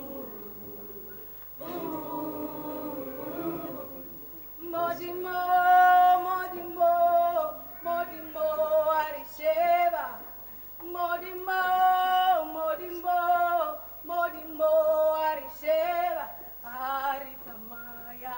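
Church choir singing. It starts softly, and about five seconds in it gets louder, with one clear voice standing out in short sung phrases over the group.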